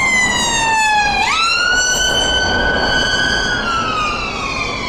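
Ambulance siren wailing in slow sweeps. The pitch falls, jumps back up about a second in, holds level, then starts falling again over the last second or so. Road noise lies underneath.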